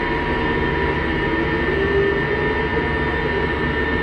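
Port grab crane's machinery running steadily, heard inside the operator's cab: a low rumble with steady electric whines and a tone that rises and falls in pitch about halfway through.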